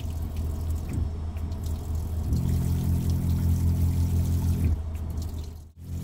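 Water running into a camper-van sink over the low, steady hum of the idling van engine. About two seconds in, a small electric pump hums on a steady pitch for a little over two seconds, then stops.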